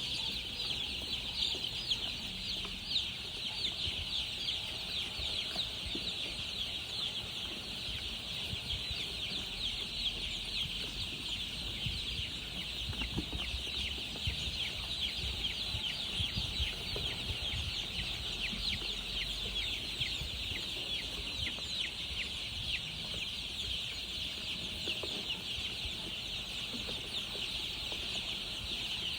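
A large brood of baby chicks peeping continuously: a dense chorus of many overlapping high-pitched cheeps.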